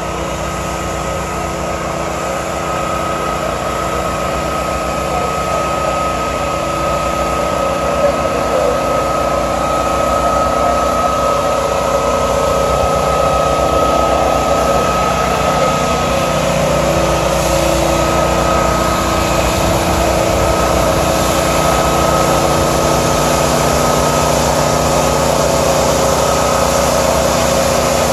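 A motor engine running steadily, with a constant high whine over its drone, growing louder over the first ten seconds or so.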